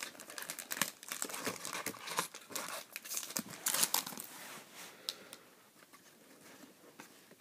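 Foil trading-card pack wrapper crinkling and tearing as it is pulled open, dense crackling for about four seconds, then only faint handling of the cards.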